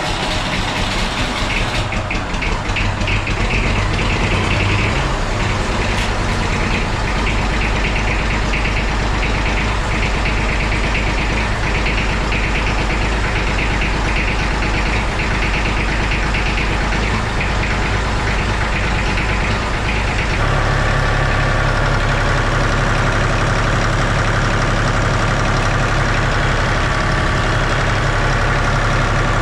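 1964 Massey Ferguson 35X tractor's Perkins three-cylinder diesel engine running steadily just after starting, now fed by a newly fitted fuel lift pump. About two-thirds of the way through, its note changes and it gets a little louder.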